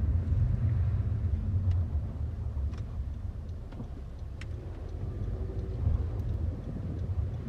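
Steady low rumble of a car on the move, heard from inside the cabin, with a few faint ticks.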